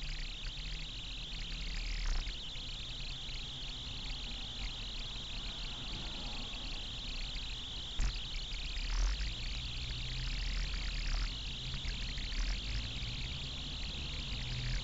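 Steady cabin noise inside a stopped car: a low engine hum under an even hiss, with a sharp click about eight seconds in and a few brief swishes.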